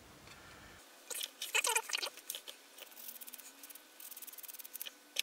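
Small scratchy rubbing and tapping of model-making hand tools, a grey sanding stick among them, on plastic and a cutting mat: a few sharp rasping strokes about a second in, then a quick run of fine scratchy ticks about four seconds in.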